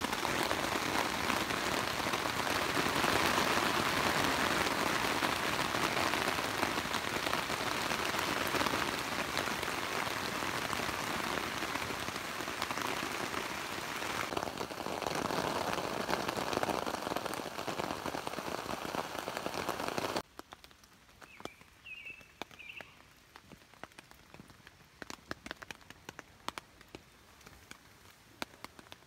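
Steady rain on the fabric of a tent, heard from inside. About twenty seconds in it cuts off suddenly, leaving scattered drips and a bird chirping a few times.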